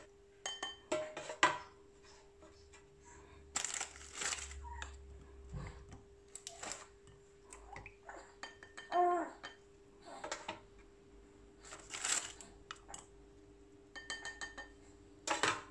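Tea biscuits being dipped in a bowl of juice and set down in a metal loaf pan: scattered light taps and clinks against the pan and the bowl, with a faint steady hum underneath.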